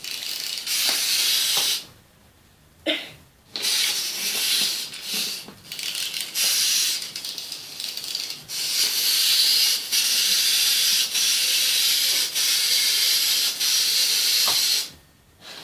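Crinkling and rustling of a plastic wrapper as a small plastic toy figure is unwrapped and handled, in long stretches broken by short pauses.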